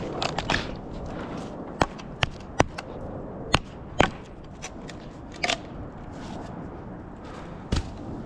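A series of sharp, irregular clicks and knocks, about eight of them spread unevenly, over a low steady background rumble.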